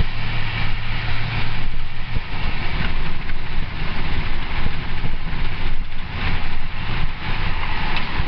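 Car driving on a wet highway, heard from inside the cabin: steady tyre hiss and road rumble, with a low engine hum that drops away about two seconds in.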